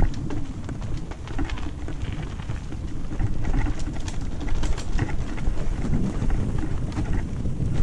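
Riding noise from a mountain-bike action camera: wind buffeting the microphone and tyres crunching over a dirt trail, with many small clicks and rattles from the bike.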